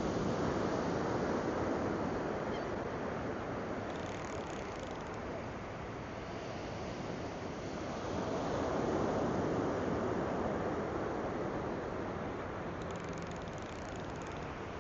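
Ocean surf washing onto the beach, a steady rush that swells near the start and again a little past halfway as waves break.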